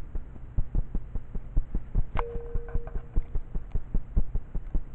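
Idling engine: a low steady hum with an even throb of about five pulses a second. A brief steady tone sounds about two seconds in and lasts about a second.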